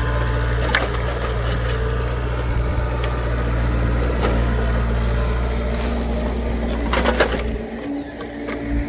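Hitachi mini excavator's diesel engine running steadily under load as it digs out tree stumps, with a few sharp knocks about seven seconds in. Near the end the low rumble drops away, leaving a steady higher hum.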